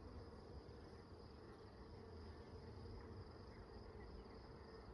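Honeybees humming around an open hive during a frame inspection: a faint, steady drone.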